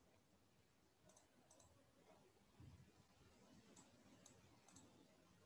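Near silence broken by a handful of faint computer mouse clicks, some in quick pairs.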